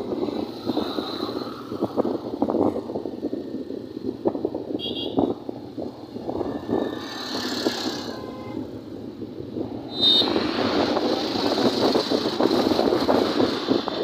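Road noise from a moving vehicle, with wind buffeting the microphone in quick irregular flutters. There are brief high horn beeps about five seconds in and again at about ten seconds, after which the wind rush gets noticeably louder.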